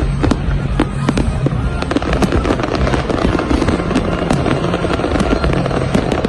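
Fireworks going off in quick, irregular succession: many sharp bangs and crackles over a steady rumble.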